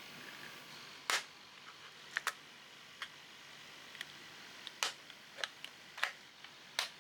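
Sharp plastic clicks and snaps, about nine of them at irregular intervals, as the plastic housing of a Motif Aura breast pump is pried apart.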